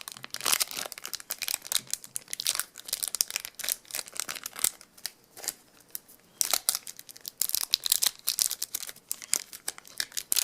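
Trading-card pack wrapper being crinkled, squeezed and torn at by hand: rapid irregular crackling of a pack that is hard to tear open, easing off briefly a little past the middle.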